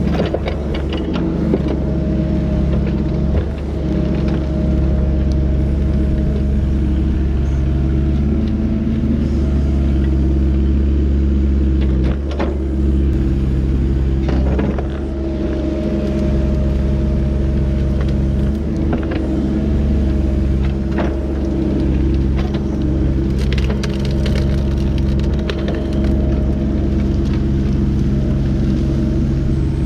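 Excavator's diesel engine running steadily while brush and branches are pushed, with irregular snapping and cracking of breaking wood.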